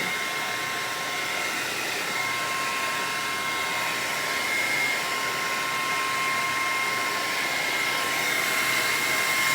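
Handheld blow dryer running steadily, a constant rush of air with a steady motor whine, drying Got2b spray glue on the lace edges.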